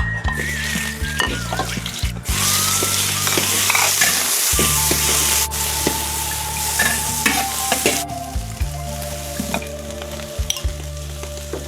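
Food frying in a hot pan, sizzling, with a spatula stirring and clacking against the pan. The sizzle swells about two seconds in and eases off in the last few seconds.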